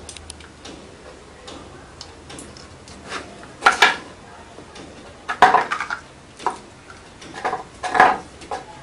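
Hard plastic clicks and clatters as an inkjet cartridge and its plastic holder are handled and set down on a desk, in a few short irregular clusters.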